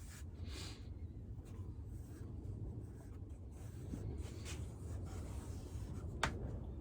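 Faint rubbing and scraping of fingers pressing and smoothing soft clay into a pot's joint, with one sharp click about six seconds in.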